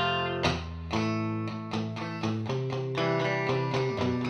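Electric guitar (a Fender Stratocaster) played with a clean tone straight through a 1968 Fender Super Reverb tube amp. A chord rings, then a quick run of picked notes and chord stabs follows from about a second in.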